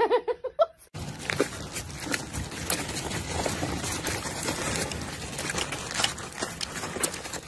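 A child's push-walker cart with small plastic wheels rolling over asphalt as a dog pushes it: a steady gritty rumble with many irregular clicks and rattles.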